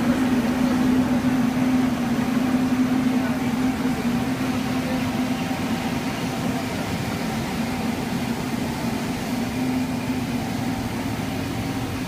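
Rubber hose extrusion and curing line running: a steady low machine hum over a rushing hiss, a little louder in the first few seconds and easing slightly after.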